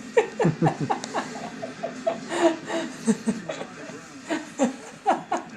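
A baby giggling and babbling in short, high-pitched bursts of quick falling syllables.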